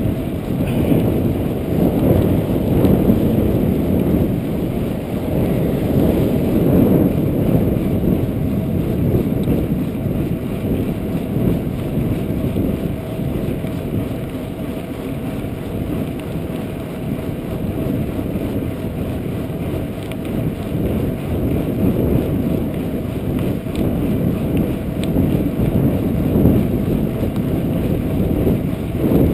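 Wind buffeting the microphone of a chest-mounted action camera on a moving bicycle: a steady low rumble that swells and eases with the rider's speed and the breeze.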